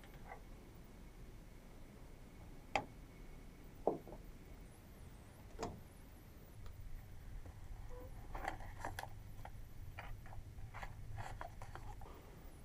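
A plastic coat hanger clicking against a wall hook three times, then a run of light rustling and small handling clicks as a hoodie is hung on it. A low steady hum of the ship's engines sits underneath.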